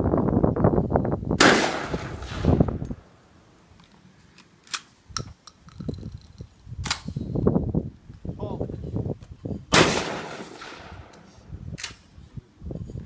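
Shotgun shots at clay targets: two loud blasts about eight seconds apart, each ringing out for about a second, with several fainter, sharper cracks in between. Wind rumbles on the microphone during the first few seconds.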